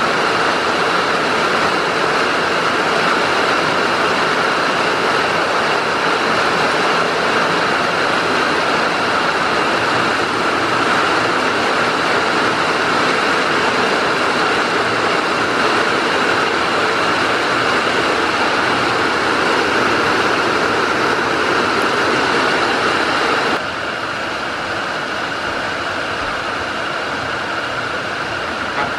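Heavy rain falling steadily, a dense even hiss that drops a little in level suddenly about 23 seconds in.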